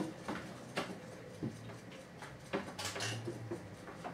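About half a dozen sharp, irregular clicks and ticks over a faint, steady low hum.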